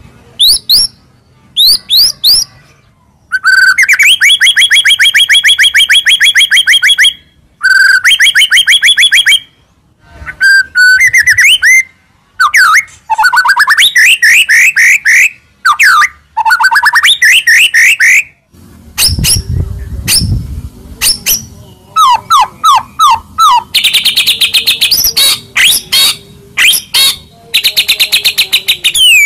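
White-rumped shama (murai batu) singing a varied masteran song: long runs of rapid, repeated rising notes that switch from phrase to phrase, with short pauses between them. A low rumble sounds under the song for a couple of seconds about two-thirds of the way through.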